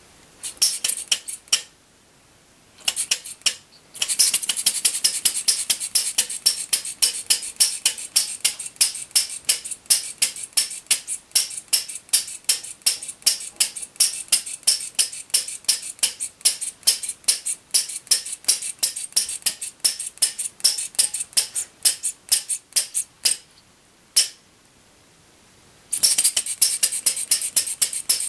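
Model RMC Paradox non-compression single-cylinder gasoline engine with Ford buzz-coil ignition, flipped over by hand, firing with a sharp metallic pop each stroke. It stutters twice before settling into a steady run of about four pops a second, then stops for about two seconds apart from one lone pop and picks up again.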